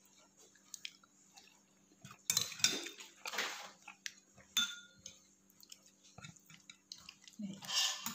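Metal spoon clinking and scraping against a ceramic plate as the food is eaten. The sounds come in a few separate bursts with quiet gaps between them.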